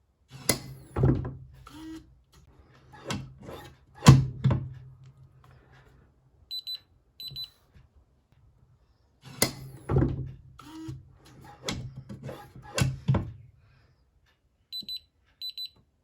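Biometric pistol safe being operated: a run of sharp mechanical clicks and clunks from its lid and latch over a low hum, then short high electronic beeps in quick pairs. The same sequence happens twice.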